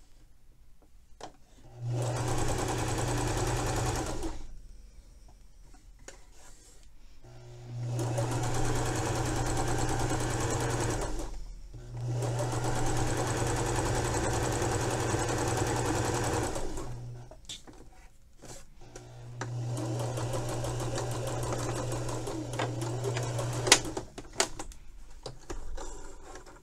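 Domestic electric sewing machine stitching a narrow hem, running in four stretches of a few seconds each with short pauses between. A single sharp click comes at the end of the last run.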